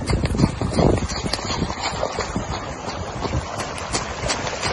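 Wind buffeting the microphone over a steady rush of muddy floodwater running across a road, with scattered small ticks.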